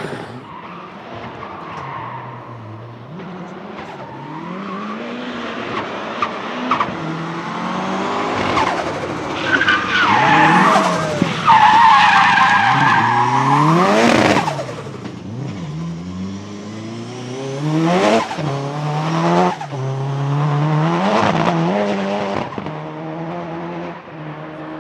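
Nissan 200SX S13 drift car's turbocharged engine revving up and down over and over as it drifts, with tyres squealing, loudest about halfway through. A couple of sharp cracks come later on.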